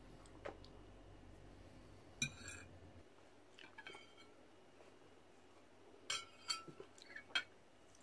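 Cutlery clinking against dishes as a meal is eaten: a few light clicks and two brighter ringing clinks, about two and six seconds in.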